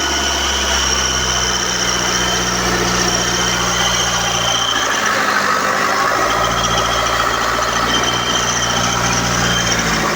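BMW N47 four-cylinder diesel engine running, with a thin high-pitched squeak over the engine note. The squeak is the fault being shown, heard when the throttle is pressed. The engine note shifts about five seconds in and settles back a second or so later.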